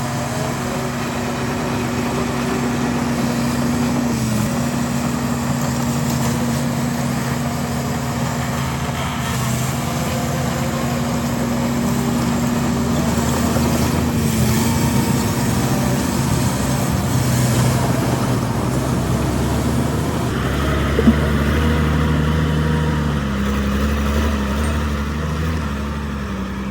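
Diesel engines of heavy earthmoving machinery running steadily, the engine note shifting slightly now and then, with a second, deeper engine hum joining about two-thirds of the way through and a single sharp click shortly after.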